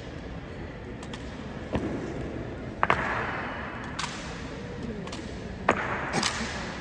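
Honor guard rifle drill: sharp slaps and knocks of hands and boots on rifles and of rifles on the floor, about six in all, the loudest a quick double strike about three seconds in. Each one echoes briefly off the hall's marble walls.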